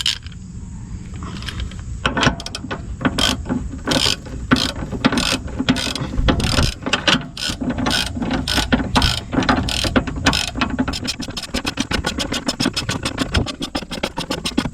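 Hand ratchet wrench clicking as a bolt on the rear subframe bracket is tightened. Slower strokes at first, then quicker short strokes near the end.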